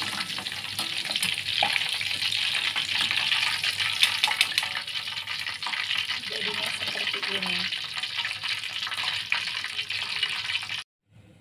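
Cubes of tofu deep-frying in hot oil, a steady sizzle, with scattered clicks and scrapes of a utensil in the pan as the half-fried tofu is lifted out. The sizzle cuts off suddenly near the end.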